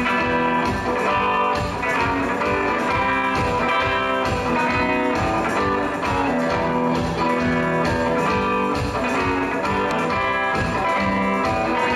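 Music: guitar-led band track with a steady beat.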